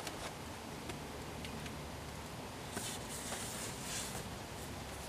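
Plastic instrument-cluster surround being pulled off a Holden dashboard: a few light clicks as its clips let go, then brief rubbing and scraping of plastic on plastic about three and four seconds in.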